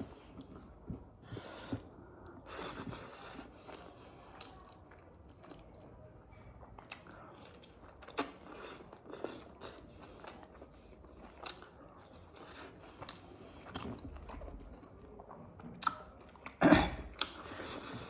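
A person chewing and biting into a meal of pork curry and rice, with close wet mouth sounds, crunching and small clicks throughout. There is a louder burst of noise near the end.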